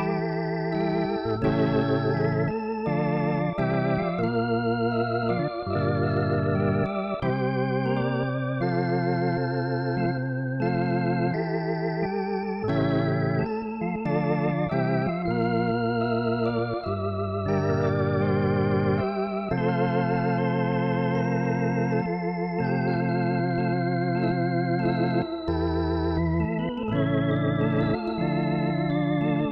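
Native Instruments B4 II, a software emulation of a Hammond tonewheel organ, played live: held chords with a wavering shimmer over a bass line that changes every second or two, with no pauses.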